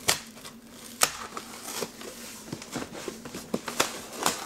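Glued cardboard box flaps being prised open by hand: cardboard crackling and scraping, with a few sharp snaps.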